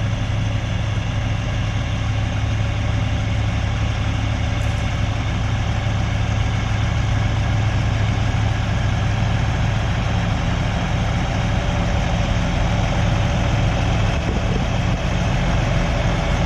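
Heavy diesel tow truck engine idling steadily, a constant low rumble with no change in speed.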